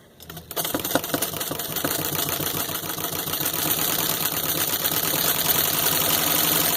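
Antique 1890s Jones cylindrical-shuttle sewing machine driven by a retrofitted electric motor, running and stitching through four layers of denim: a fast, even mechanical clatter that starts just after the beginning and builds up speed over the first second.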